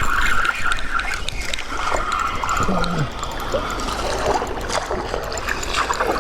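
Shallow creek water trickling and splashing, steady, with many small clicks and splashes through it.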